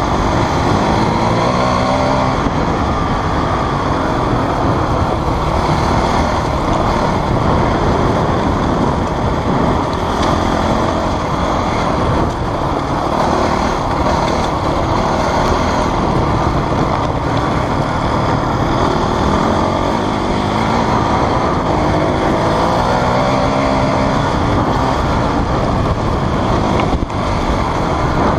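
Off-road motorcycle engine running under load, heard from the rider's own bike, its pitch rising and falling again and again as the throttle opens and closes, over constant wind and riding noise.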